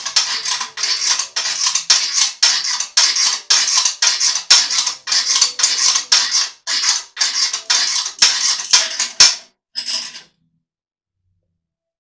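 Fast, even rasping strokes, about three to four a second, as of something being worked back and forth or ratcheted. They stop abruptly about ten seconds in.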